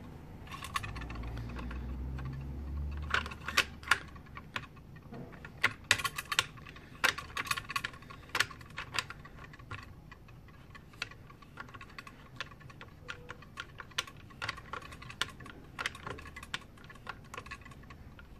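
Bolt of a .300 Win Mag bolt-action rifle being worked by hand: a run of irregular sharp metallic clicks and clacks as the bolt handle is lifted, cycled and closed on a resized case to test how it chambers. There is a low rumble of handling in the first few seconds.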